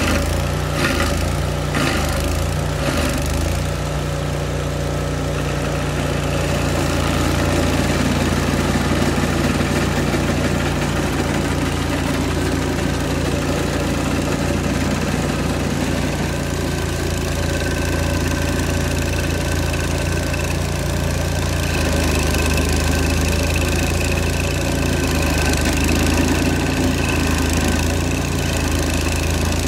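An old Vermeer stump grinder's engine running steadily, with a few sharp knocks in the first few seconds and a slight change in its note about two-thirds of the way through.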